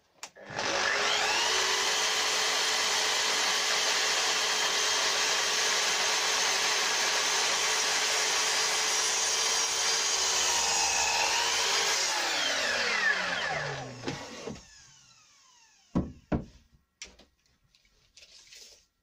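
Sliding mitre saw starting up and running steadily as its blade crosscuts a 4x3 softwood timber. It is switched off about 12 seconds in and winds down with a falling whine. A few sharp knocks follow near the end as the timber is handled.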